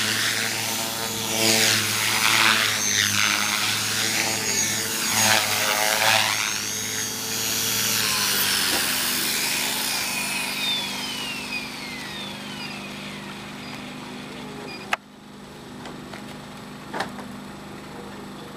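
Align T-Rex 450 Pro electric RC helicopter in flight, its Mavrikk rotor blades whooshing with a pitch that swoops up and down over a steady motor whine. After it sets down, the whine slides down in pitch and fades as the rotor spools down. About two-thirds of the way through the sound cuts off suddenly, leaving a quieter stretch with a few clicks.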